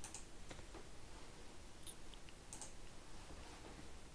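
A few faint computer mouse clicks, spaced about a second apart, over low room hiss.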